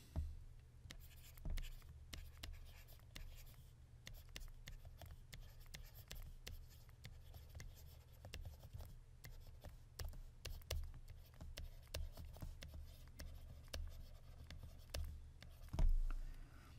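A stylus writing on a tablet, a quick irregular run of light taps and scratches as the words are written out, over a steady low hum. There is a dull bump near the end.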